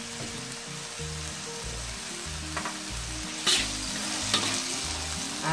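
Vegetable filling of carrot, garlic and chilli sizzling in a hot metal wok over a high flame while a metal spatula stirs it. A couple of sharp scrapes of the spatula against the pan come about three and a half and four and a half seconds in.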